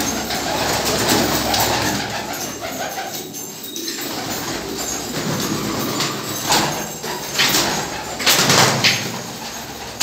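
Domestic pigeons cooing on a loft shelf. Several short rustling bursts come in the second half.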